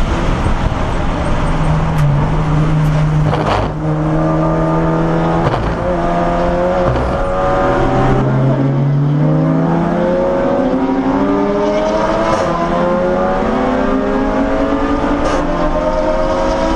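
Audi S3 race car's engine heard from inside the cockpit, accelerating hard through the gears: its pitch climbs and drops back at three quick upshifts in the first half, then rises slowly, over steady road and wind noise.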